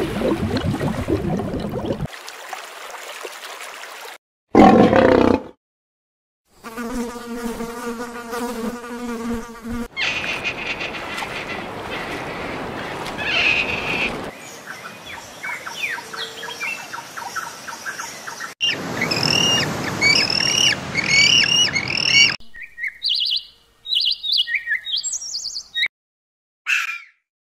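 A string of separate animal-sound clips cut one after another, with abrupt changes and short gaps. They include a short loud burst about five seconds in, a steady buzzing call, and later a run of quick chirps repeated about twice a second, followed by short single calls.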